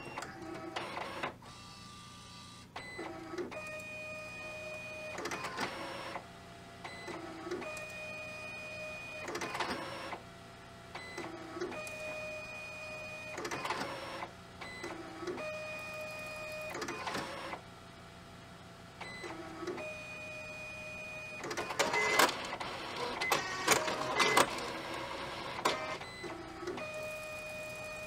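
HID Fargo DTC4250e ID card printer printing a test card: its motors run in repeated passes about every four seconds, each a steady whine broken by short mechanical shuffles, with a burst of clicking and clattering about three quarters of the way through.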